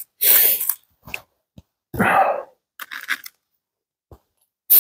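Several short bursts of close rustling and crunching, with a few faint clicks between them, from a drink bottle and its cap being handled; the cap is starting to freeze. The loudest bursts come just after the start and near the end.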